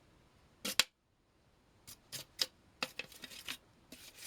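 Sharp clicks and light knocks of hard plastic parts being handled and set down on a workbench: one loud click just under a second in, then a run of scattered clicks.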